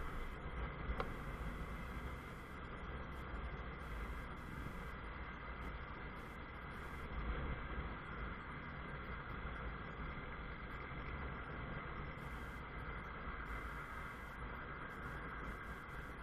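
Honda CBF 125 motorcycle under way, its single-cylinder four-stroke engine running steadily beneath a low rumble of wind and road noise.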